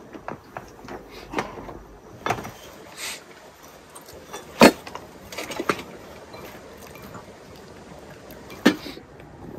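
Scattered clinks and knocks of enamel teapots and a china bowl being handled as tea is poured. The sharpest knock comes about halfway through and another near the end.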